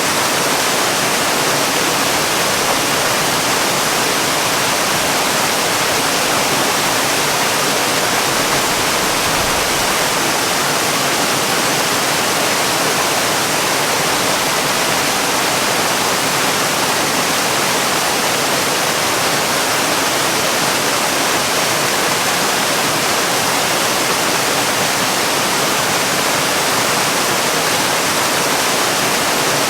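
Waterfall: a steady, unbroken rush of falling water with a hiss like white noise.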